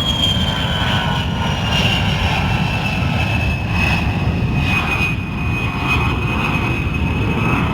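Attack jet's engines running: a loud, steady rumble with a high turbine whine that slowly falls in pitch over the first few seconds, then holds level.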